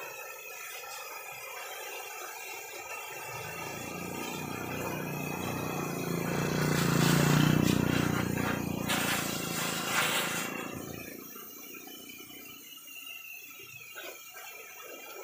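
An engine approaching and passing: it grows louder over a few seconds, is loudest in the middle, then fades away.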